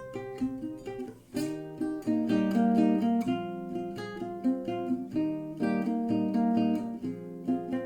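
Acoustic guitar playing a run of plucked notes and chords, with a brief break about a second in.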